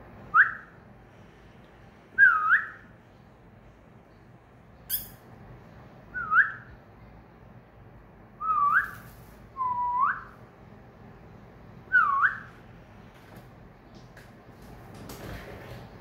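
Cockatiel whistling: about six short whistled phrases, mostly quick upward-swooping notes, spaced a couple of seconds apart, with a sharp click about five seconds in.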